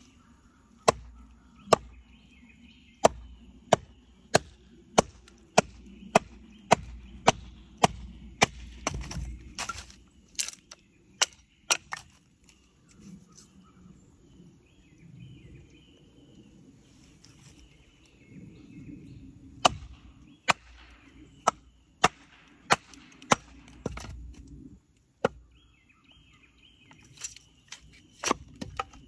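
Hatchet chopping a walnut spoon blank: runs of sharp wooden chops about one and a half a second, stopping for several seconds in the middle before starting again. Birds chirp faintly in the background.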